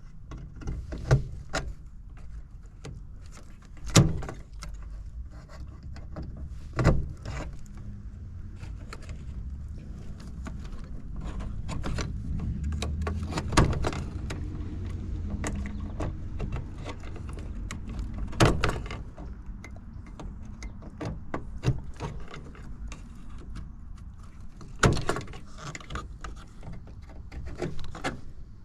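Hands and tools working inside a heat pump's outdoor unit during a defrost control board replacement: scattered sharp knocks, clicks and light rattles, about half a dozen louder ones, over a low steady rumble.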